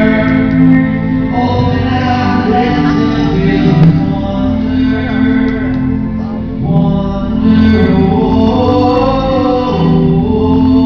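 Live band playing a song at a sound check, a man singing over guitar and a steady low bass, loud and continuous.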